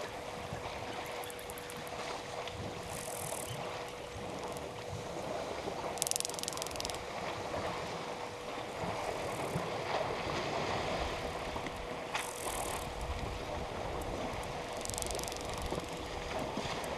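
Water sloshing and splashing at a waterhole where an elephant herd is drinking, over a steady faint hum. Short high hissing buzzes come in four times.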